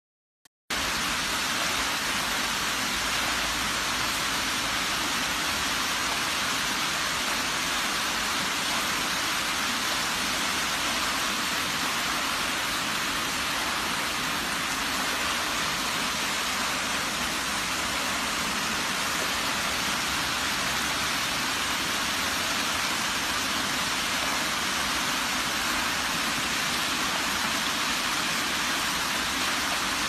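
Rainwater runoff rushing down a stepped street after heavy rain, like a small waterfall: a steady hiss of flowing water that starts suddenly just under a second in.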